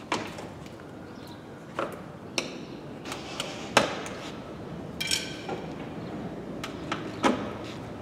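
Condenser fan being fitted into the front end of a BMW E46 by hand: a series of separate knocks and clicks, the loudest a bit under four seconds in, with a short metallic ring about five seconds in.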